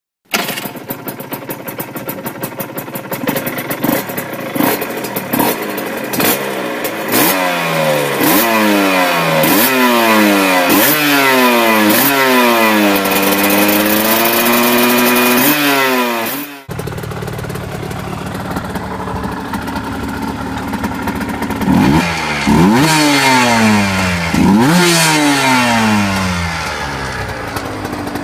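Aprilia RS125R Grand Prix racer's two-stroke single-cylinder 125 cc engine being ridden hard: a few short revs, then quick rising sweeps through the gears, each dropping back at a shift, and a long fall and rise in pitch. About seventeen seconds in, the sound cuts abruptly to another recording of the same kind of bike, running lower with a few sharp revs.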